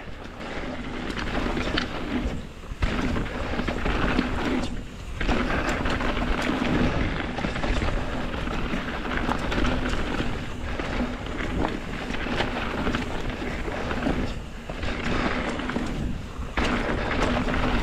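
Mountain bike riding fast down a dirt trail: tyres rolling over dirt and rocks, with wind rushing over the microphone. A steady rumbling noise and a low steady buzz break off briefly a few times.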